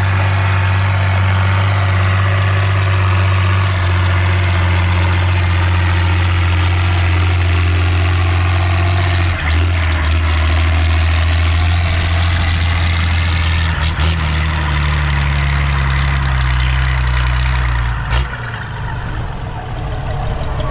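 Valmet 118 tractor's straight-piped diesel engine running steadily. Its note shifts about halfway through, and the engine slows and gets a little quieter near the end.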